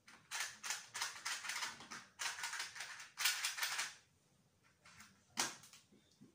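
Toothpicks rattling in a small box as it is shaken and tipped out, a few bursts of light, dense clicking over the first four seconds, then one more short rattle near the end.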